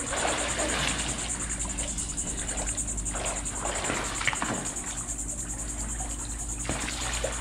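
Pool water splashing and trickling as water is squirted through a pool noodle, over a steady, rapidly pulsing high buzz of insects.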